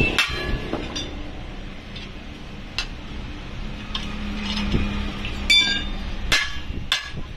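Hand hammer striking rivets on the steel blade of a kassi (spade) as they are set: about six sharp metallic clinks, each with a short ring, at uneven intervals. The loudest blow comes a little past halfway.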